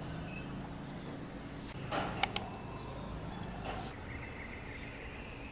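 Outdoor ambience: a low steady hum with faint high chirps, and two sharp clicks in quick succession about two seconds in.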